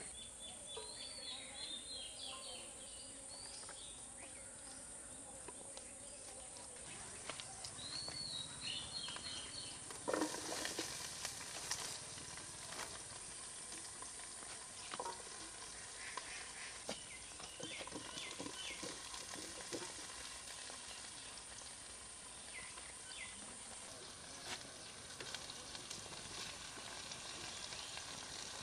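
Food frying in oil in a pan: a steady sizzle, with a spoon stirring and scraping the pan now and then. Birds chirp a few times in the background.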